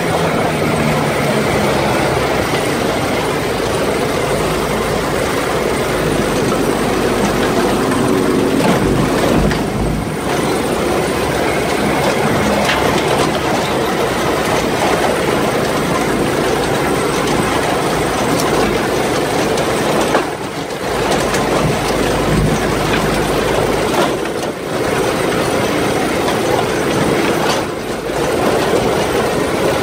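Off-road buggy under way on a rough dirt track, heard from its own seat: the engine running with the chassis rattling and jolting over the bumps. The noise dips briefly four times.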